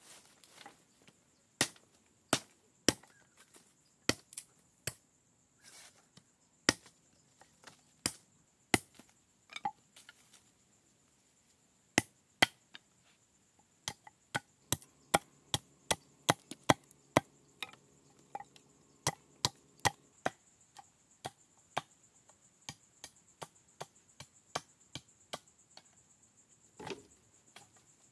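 Machete chopping sticks of wood against a log: a long series of sharp, irregularly spaced blows, with a quicker run of strikes about halfway through.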